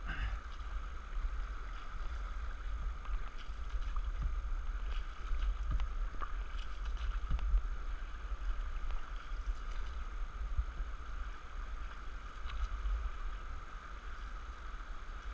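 Steady rush of river rapids around an open canoe, with a low rumble and the occasional splash of paddle strokes in the water.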